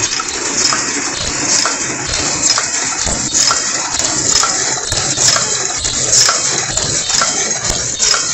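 SM SW-75 single-wall paper cup forming machine running, a steady mechanical clatter with sharp metallic clicks a little more than once a second.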